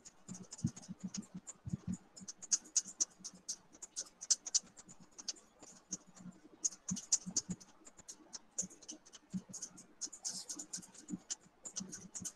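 Faint, irregular clicking and scratching, several quick clicks a second with the odd soft thump.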